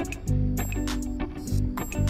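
Background music with a steady beat and a bass line that changes notes about every half second.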